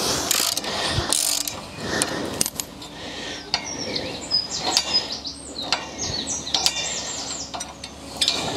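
Ratchet wrench clicking again and again, with metal knocks, as an old, stubborn bolt holding a spring tine to a haymaking machine's tine arm is worked loose.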